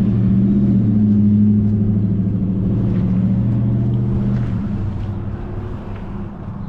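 A motor vehicle's engine running close by, a steady low hum that holds for about four and a half seconds and then fades away.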